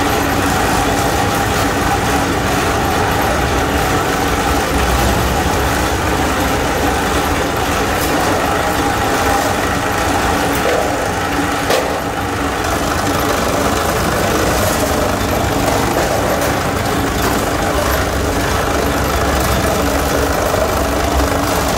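Electric deep-throat sheet-metal cutting machine running with a steady mechanical drone as its blade trims the edge of a pressed steel motorcycle seat base. A single sharp click comes about twelve seconds in.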